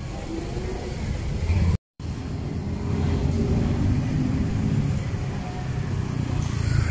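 Street traffic: motor vehicle engines running and passing close by, a steady low rumble that grows louder after about three seconds. The sound cuts out completely for a moment just under two seconds in.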